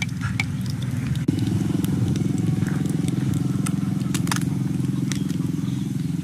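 Small battered fish frying in hot oil in a wok over a wood fire, with scattered crackles and pops. A steady low mechanical drone runs underneath and is the loudest sound, stepping up slightly about a second in.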